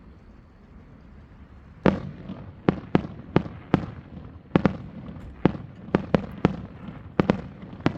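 Aerial fireworks shells bursting in a rapid, irregular barrage: about fourteen sharp booms, some in quick pairs, starting about two seconds in after a near-quiet lull.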